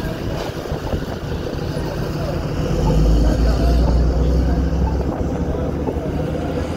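City street traffic going by on a busy road, with a deep rumble swelling up for about two seconds in the middle.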